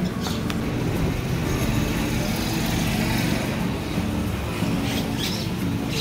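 Street traffic noise: a motor vehicle passes by, swelling through the middle and fading.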